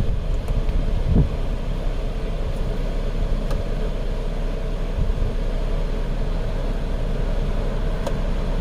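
2010 Chrysler Sebring's 2.7-litre V6 idling with its A/C running, a steady low hum of engine and fans while the recharged system is left to cool down. A brief low thump about a second in.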